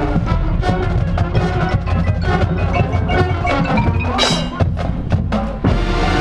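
Marching band playing, the percussion prominent with drums and mallet keyboards striking out the rhythm; the strikes stop near the end with a held low note.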